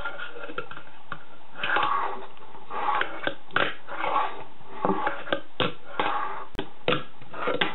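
A fingerboard being ridden over a wooden kicker ramp on a tabletop: small wheels rolling on the wood, broken by about a dozen sharp clacks of the board popping, hitting the ramp and landing.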